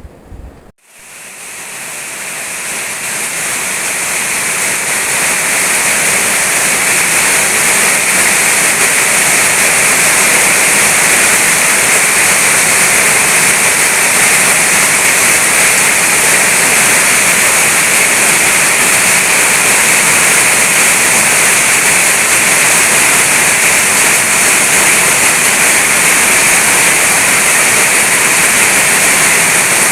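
Heavy rain falling in a steady, dense hiss, swelling in over the first few seconds after a brief low thump at the very start.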